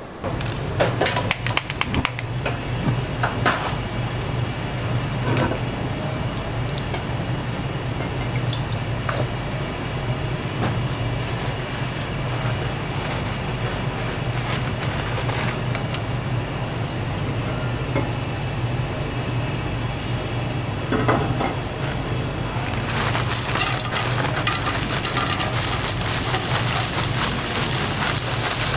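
A nonstick frying pan clinks against the gas stove grate a few times, over a steady low hum. Near the end, diced vegetables go into the hot oil and a sizzling hiss rises.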